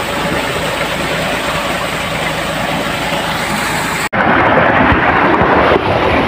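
Tubewell water gushing from a pipe outlet and splashing into a brick tank: a loud, steady rush. About four seconds in it cuts off abruptly and gives way to water flowing down a concrete irrigation channel.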